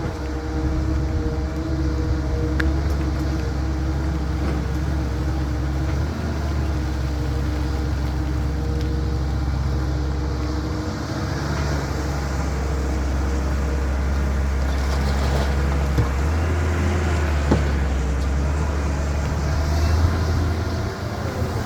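Diesel engine of a CAT 320 hydraulic excavator running steadily under work, its low drone shifting in level a few times as the load changes, with a few sharp knocks.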